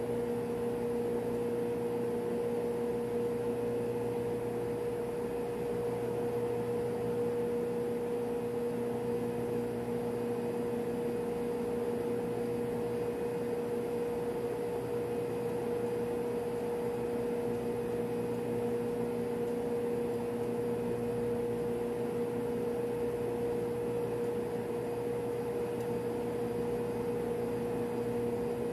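Steady machinery drone in a ship's machinery space, a constant hum that holds one pitch without change.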